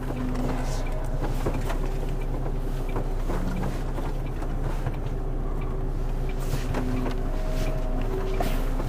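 HGV's diesel engine running at low revs, heard from inside the cab as a steady low drone, with faint scattered clicks.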